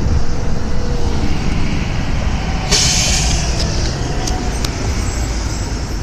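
Steady rumble of road traffic, with a short sharp hiss about three seconds in.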